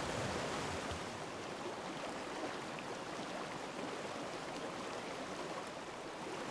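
Small mountain stream rushing over rocks and through riffles: a steady wash of running water.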